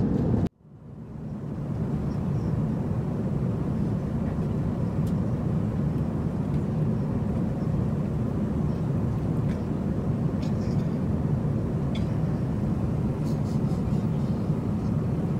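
Steady cabin noise of an Airbus A350-900 airliner in flight: a low, even rumble of engines and airflow. It cuts in after a brief dropout about half a second in, with a few faint clicks later on.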